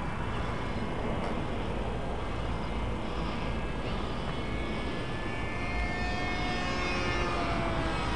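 Vortex electric RC plane's brushless motor and pusher propeller whining in flight, a thin tone that drifts slowly up and down in pitch and grows clearer in the second half, over a steady low rumble.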